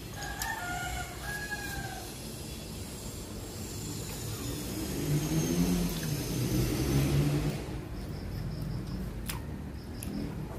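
A rooster crowing once, a broken, pitched call in about three parts lasting under two seconds. A low hum then swells over a few seconds in the middle and drops away; it is the loudest sound here.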